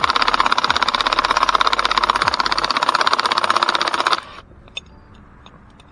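Impact wrench hammering rapidly on the forcing screw of a pulley puller to draw the pulley off the power steering pump shaft. It stops suddenly about four seconds in, then a few light clicks.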